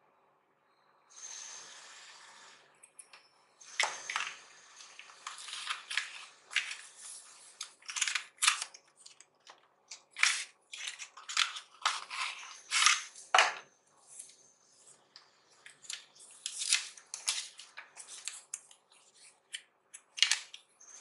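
Paper packaging rustling and crinkling in many short bursts as a paper envelope is handled and the folded paper leaflets from a phone box are opened and leafed through.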